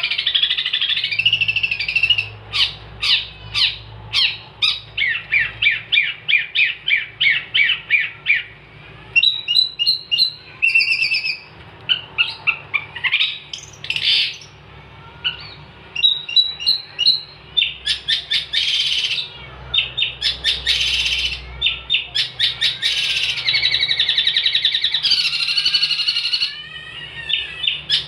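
Long-tailed shrike (cendet) singing a long, varied song of rapid chattering note series, trills and harsher phrases, broken by brief pauses.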